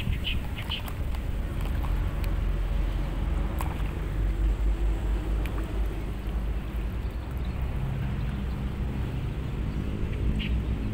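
Steady low outdoor rumble that swells and dips, with clusters of short high chirps at the very start and again near the end.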